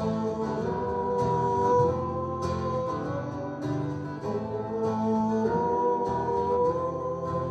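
Two acoustic guitars strummed together while a man sings long held notes that slide from one pitch to the next.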